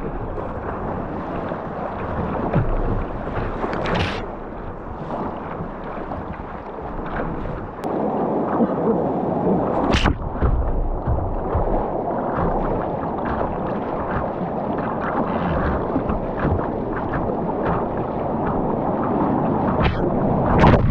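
Whitewater rapids rushing around a kayak's bow, with waves breaking over the deck and water slapping against the hull. A few sharp splashes stand out, about four and ten seconds in and again near the end.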